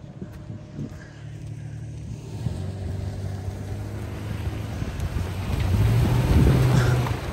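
Off-road vehicle engine run hard at high throttle to keep momentum through deep mud and avoid getting stuck. It gets louder from about two seconds in, is loudest near the end, then drops off.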